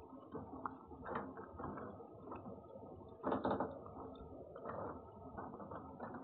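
A cat eating from a bowl right beside the microphone: irregular chewing clicks and crunches, with a louder burst about three seconds in.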